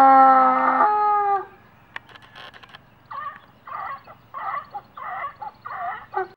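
Farm animal calls: one long, steady pitched call that ends about a second and a half in, then from about three seconds a run of five short calls in quick succession.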